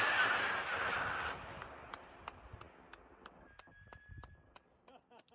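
Model rocket motor's rushing exhaust noise fading as the rocket climbs away, dying out about a second and a half in. After that only faint scattered clicks.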